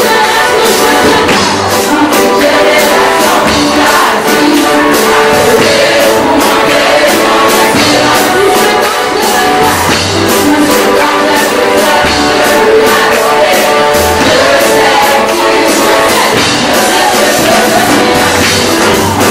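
Live church gospel music: a choir singing with band accompaniment over a steady percussion beat.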